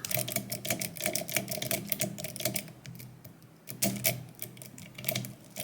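Lock pick raked back and forth over the pin stack of a Medeco M3 pin-tumbler lock held under tension: a rapid run of light clicks that thins out to a few scattered clicks about three seconds in.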